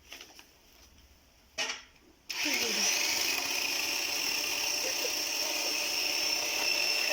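16-inch electric chainsaw switched on about two seconds in, its motor and chain then running steadily at speed with a high whine. A short knock comes just before it starts.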